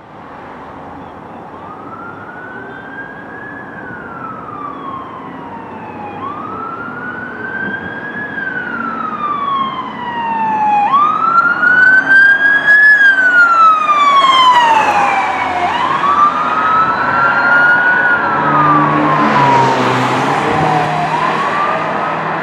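Hazmat response truck's siren on wail: slow rising-and-falling sweeps about every five seconds, growing louder as the truck approaches and passes, with traffic rumble underneath.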